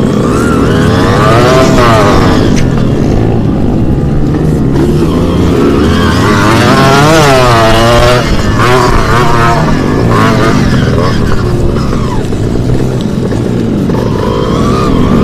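Two-stroke motocross dirt bike engine, heard up close from a camera on the bike, revving hard. Its pitch climbs and drops several times as the throttle is opened and shut, with one long climb and fall near the middle.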